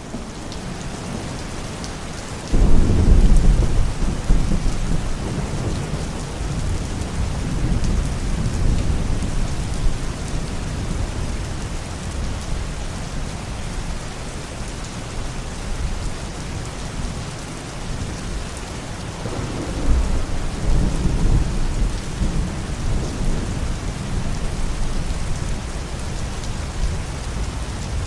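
Thunderstorm: steady rain with thunder rumbling, a loud low clap breaking about two and a half seconds in and another rumble swelling about twenty seconds in.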